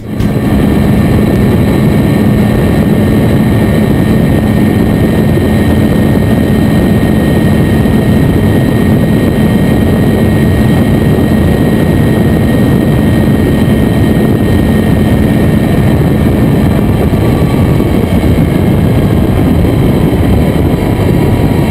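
Suzuki V-Strom DL650's 645 cc V-twin engine running at high revs on the move, heard under heavy wind rush over the microphone. The sound stays loud and steady, its pitch sinking slightly near the end.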